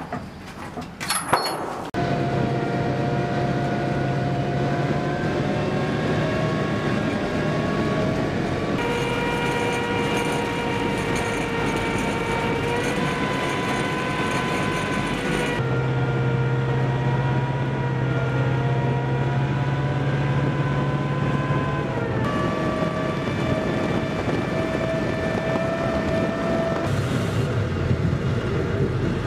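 Assault amphibious vehicle's engine and drivetrain running with a loud, steady whine. The pitch shifts a little a few times and rises briefly about two-thirds of the way through.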